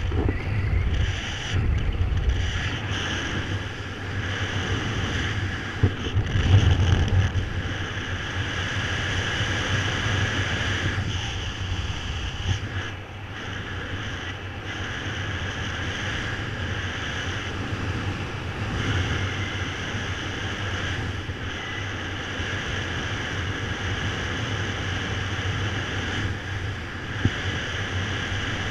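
Airflow rushing over the camera's microphone during a paraglider flight, a steady wind rush with stronger buffeting gusts a couple of seconds in and again around six seconds.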